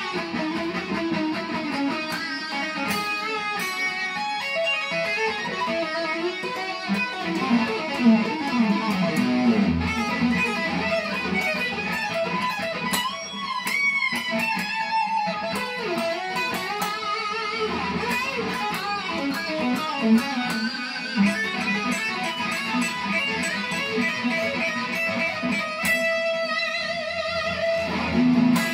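Electric guitar playing a fast rock lead line, with wavering pitch bends about halfway through.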